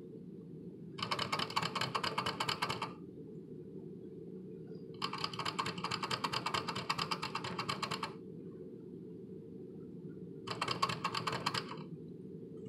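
Guinea pig drinking from a water bottle's metal sipper tube: rapid clicking at the spout in three bouts, the middle one the longest, over a steady low hum.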